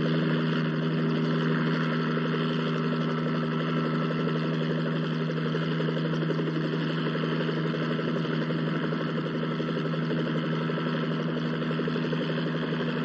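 A steady engine drone: a low, even hum with a rushing noise over it, unchanging throughout.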